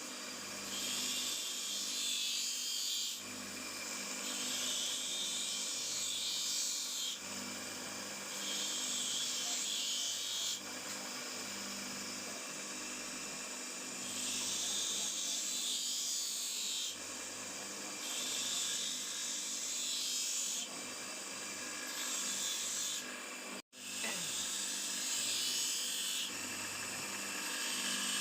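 Rust being worked off a folding knife's steel with an abrasive: a run of scratchy rubbing strokes, each lasting a second or two and coming every two to three seconds, over a steady low hum.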